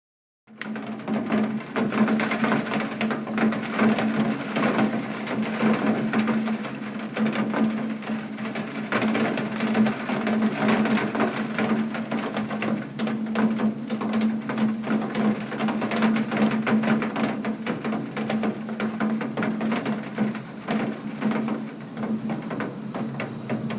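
Rain falling steadily, a dense stream of small drop ticks on a hard surface, starting suddenly about half a second in after silence, with a steady low hum beneath it.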